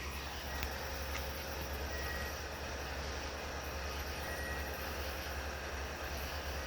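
CSX maintenance-of-way equipment working on the track: a steady low engine rumble under a hiss of noise, with a couple of faint short high tones.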